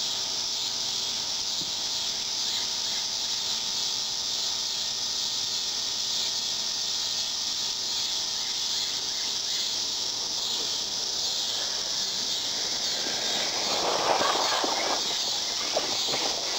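Steady high-pitched chorus of crickets and other insects. Near the end an R/C car runs past close by on the dirt track, a short rush of noise with a few sharp clicks.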